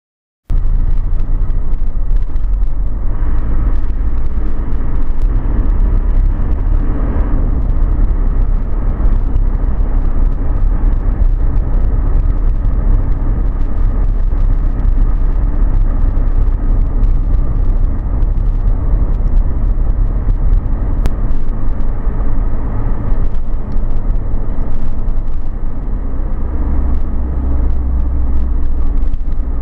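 Car driving at road speed on a sealed road: a steady low rumble of engine, tyres and wind noise, starting abruptly about half a second in.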